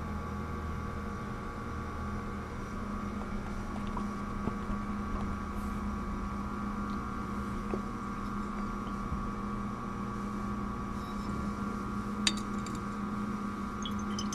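Steady hum with a couple of level tones, and a few light clinks as glass laboratory flasks are handled. Near the end, a water sample begins pouring from a graduated cylinder into a glass Erlenmeyer flask.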